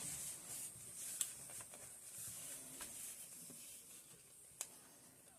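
A few faint, sharp clicks from rifle parts being handled and fitted, over a steady faint hiss.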